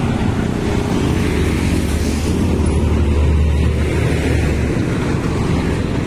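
Heavy truck's engine passing close by, a deep steady drone that swells in and falls away near the end. Road traffic noise underneath.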